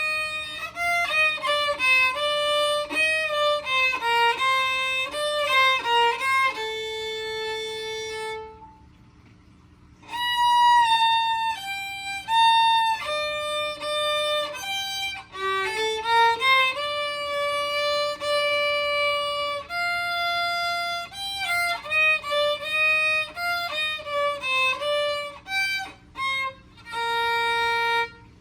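Solo violin playing a melody of held and moving notes, with a break of about a second and a half about nine seconds in.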